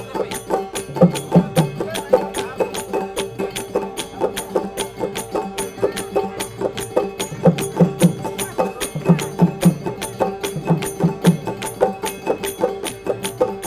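Instrumental folk-style music: a fast, steady percussion beat over a held drone, with groups of three deep drum strokes every few seconds.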